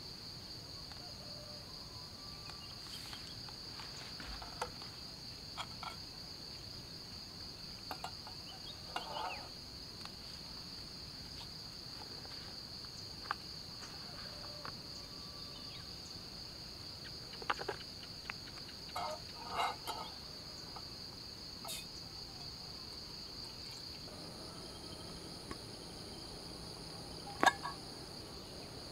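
A steady, high-pitched drone of a chorus of insects such as crickets, with scattered light clicks and knocks of metal camping cookware being handled, the sharpest clack near the end.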